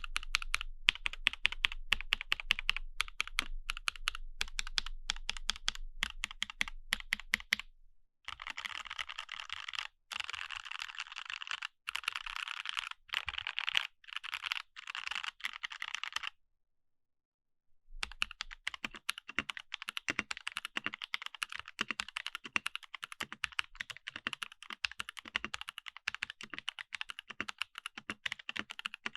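Fast typing on a mechanical keyboard fitted with Jwick Ultimate Black-series linear switches, a quick run of key clacks. The typing breaks off briefly about eight seconds in, then stops for nearly two seconds past the middle before resuming.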